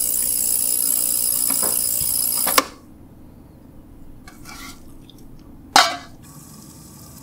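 Quantrex ultrasonic cleaner running: a loud steady high hiss that cuts off suddenly about two and a half seconds in. Near the end, a sharp metal clank from its stainless lid or basket.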